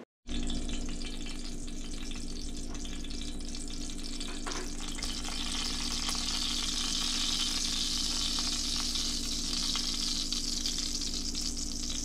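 Hot oil sizzling in a cast iron skillet as breaded panfish (bluegill) pieces are laid in to fry. The sizzle is steady and grows louder about halfway through, as the pieces go in.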